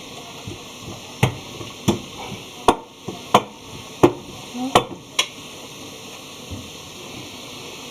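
Cookie dough deep-frying in hot fat with a steady sizzle. About ten sharp clicks and knocks of kitchen utensils come between one and five seconds in.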